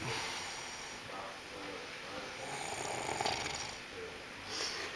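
A man snoring in his sleep, with one long snore in the middle.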